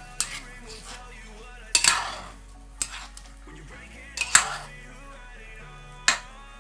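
A cooking utensil stirring chicken braising in soy sauce in a pot, knocking and scraping against the pot about five times.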